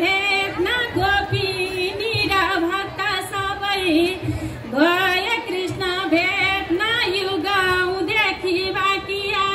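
A woman's voice singing a Nepali chudka-style bhajan, a devotional song, with a wavering, ornamented melody. It is amplified through loudspeakers, with musical accompaniment underneath.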